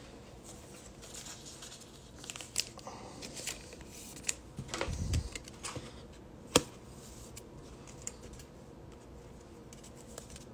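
A trading card being handled and slid into a rigid plastic top loader: faint rustling and small plastic clicks, a soft bump about five seconds in, and one sharp click about six and a half seconds in.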